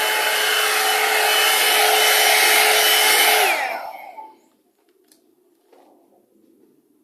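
Handheld hair dryer blowing steadily with a whine, then its pitch drops and it winds down to nothing about three and a half seconds in, as the electricity cuts out.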